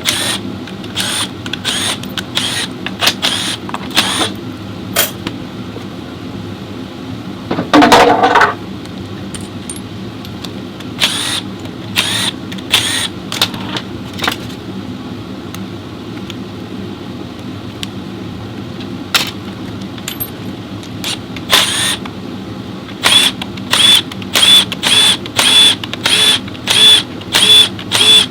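Metal clicks and clinks of hand tools and parts on a transmission being worked on, over a steady hum. A longer, louder clatter comes about eight seconds in, and near the end the clinks fall into a regular beat of one to two a second.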